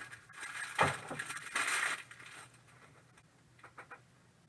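Trading cards handled on a tabletop: a stack of cards sliding, rustling and being tapped down for about two seconds, then a few light clicks.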